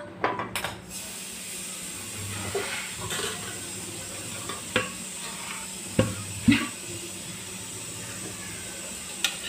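A steady low hiss with a few light knocks and clicks of kitchen utensils against pans or containers, one about five seconds in and two around six seconds in, the second one duller.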